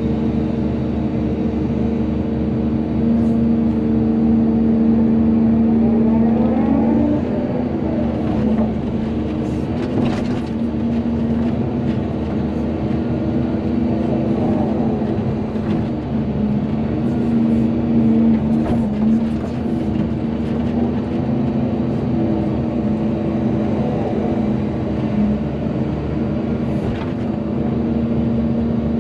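Volvo EC220DL excavator's diesel engine running steadily under hydraulic load, its pitch rising and shifting about a quarter of the way in. A few sharp knocks and clanks come through at intervals.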